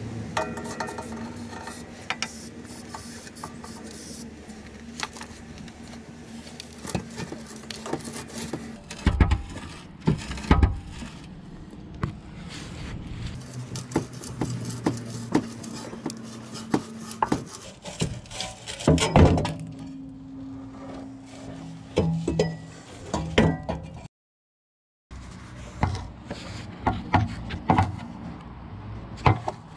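Scattered metal clinks, knocks and scraping from handling a rusty steel exhaust pipe and tools, over a steady low hum.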